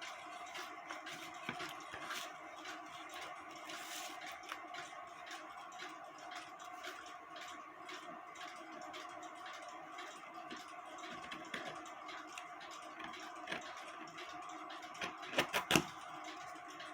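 Faint rustling and scratching of a knife trimming excess Tyvek from a cuckoo clock bellows, with small clicks of handling throughout and a few sharper clicks near the end, over a steady hum.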